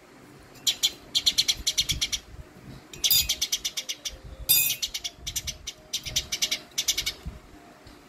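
Eurasian tree sparrow giving harsh, rapid chattering calls in repeated short bursts of about ten notes a second, the agitated scolding of an angry bird.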